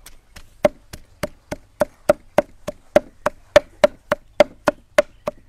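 Steel cleaver chopping repeatedly on a thick wooden stump block, mincing fish with chilies and herbs: steady, even knocks about three to four a second.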